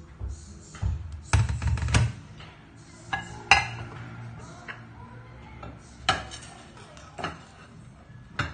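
Ceramic plates clinking and knocking together as they are lifted, stacked and set down on a stainless steel sink drainboard: a string of sharp, separate clinks.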